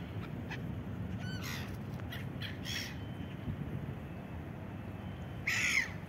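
Gulls calling: a few short calls in the first half and the loudest call near the end, over a steady low background rumble.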